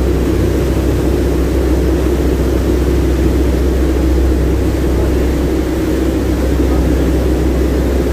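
Steady, loud drone of a passenger ferry's engines and the churning of its propeller wake under way.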